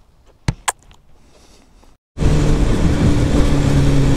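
Two light clicks, then, from about halfway through, a sport motorcycle's engine running loud and steady at constant revs, with a continuous rush of noise over it.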